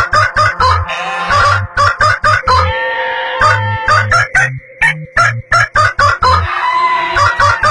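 Chicken-like clucking and rooster crowing over music with a steady beat.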